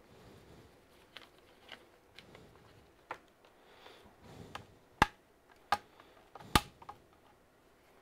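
Lenovo IdeaPad C340 bottom case being pried off. A few faint clicks are followed, about five seconds in, by three sharp snaps roughly half a second to a second apart as the case's retaining clips let go.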